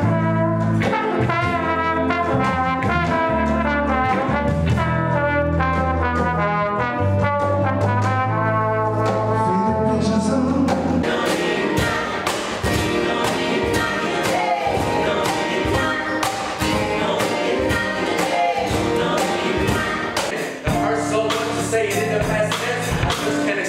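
Live band music: a trombone plays a melody over an electric bass line. About ten seconds in it cuts to two guitars strummed under a singing voice, and near the end it cuts again to another live band.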